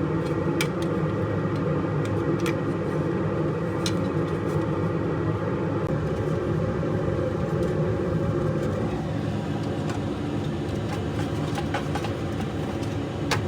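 A steady low mechanical rumble and hum with a few light clicks scattered through it.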